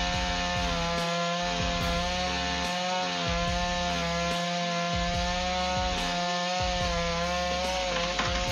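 Chainsaw engine running at high, steady revs while cutting wood, its pitch holding nearly constant throughout.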